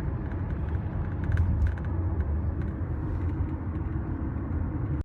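Steady low rumble of a car heard from inside the cabin, engine and road noise together, with a few faint scattered clicks.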